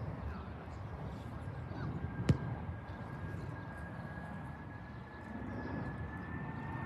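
Embraer C-390 twin-turbofan transport's jet engines as a steady low rumble with a thin, steady whine on top. A single sharp click about two seconds in.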